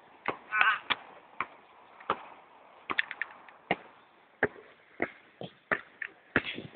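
Basketball dribbled on an outdoor hard court: sharp bounces in a steady rhythm of about three every two seconds.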